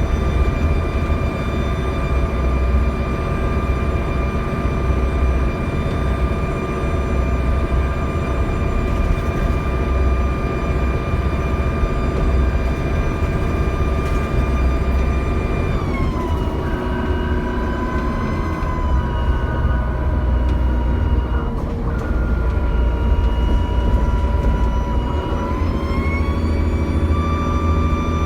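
Dennis Trident double-decker bus's diesel engine with a loud, high turbo whine over a low engine rumble. The whine holds steady, falls in pitch a little past halfway, stays lower for about ten seconds, then rises again near the end.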